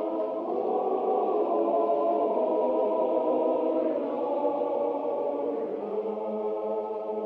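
Slow, solemn film score of sustained chords with a choir-like sound.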